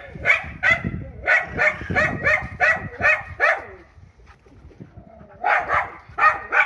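Small dogs barking in high, sharp yaps while play-fighting: a quick run of about ten barks, a short pause, then three more near the end.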